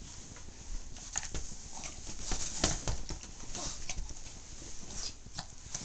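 Boston terrier scuffling with a pair of cotton underwear on a cushioned bed: irregular short rustles and scratches of fabric and paws, the loudest about two and a half seconds in.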